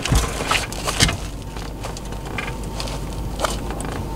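Cordless impact wrench running steadily on a seat-mount bolt, hammering it loose, with a few sharp clicks near the start.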